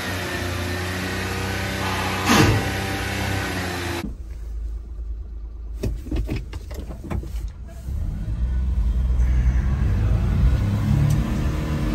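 Suzuki Carry mini truck's small three-cylinder engine running steadily, with one brief loud burst about two seconds in. After a cut, a few sharp clicks as the gear lever is worked, then a low rumble.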